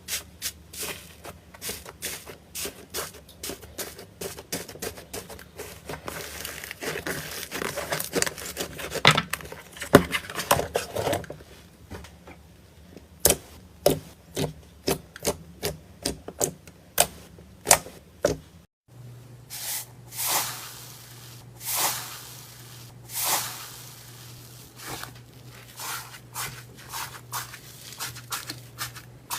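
Hands squeezing, poking and stretching slime: a long run of sticky clicks, pops and crackles. After a short break about two-thirds of the way in, the pops come fewer and more spaced out.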